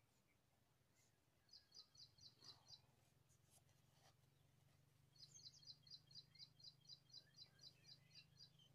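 Faint bird chirping: a quick run of about seven high chirps about a second and a half in, then a longer run of about fifteen evenly spaced chirps from about five seconds in, over a low steady hum.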